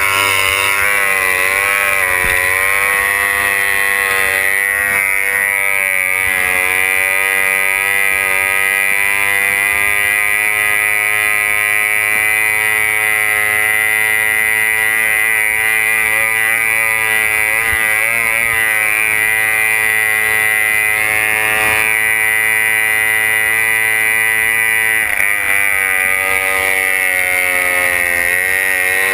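Racing runabout's outboard engine running flat out, its pitch holding mostly steady with slight wavers; about 25 seconds in the pitch dips briefly and climbs back. Rushing wind and water spray run under it.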